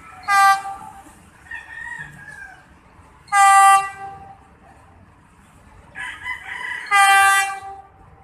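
Three short blasts of an approaching PNR train's horn, each about half a second, a few seconds apart and steady in pitch.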